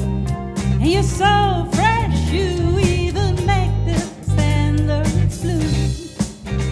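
A live band playing a slow soul song: keyboard, electric guitar, bass guitar and drum kit, with a lead melody line over them.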